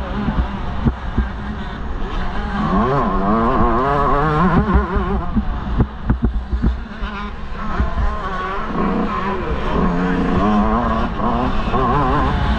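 125 cc two-stroke motocross bike engine, heard onboard while riding, revving up and falling back again and again. Rumble and sharp knocks run under it.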